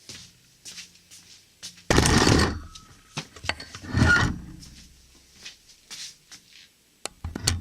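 Metal transmission parts being handled on a workbench: rubbing and scraping, with two louder clatters about two and four seconds in and a few sharp clicks near the end.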